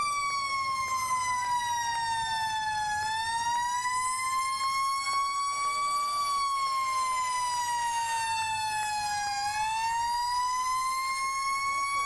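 Fire truck sirens sounding as the trucks pass. The loudest one wails slowly, falling and rising in pitch about every six seconds, and fainter sirens sweep underneath it now and then.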